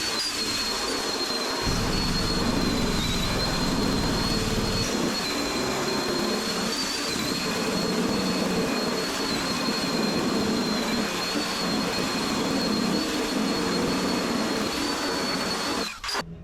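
Power tool running steadily with a high-pitched whine over a rough, grinding noise; it cuts off suddenly near the end.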